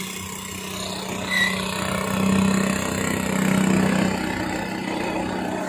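Vehicle engines running in slow traffic: a steady low engine hum that grows louder for a couple of seconds midway, over general road noise.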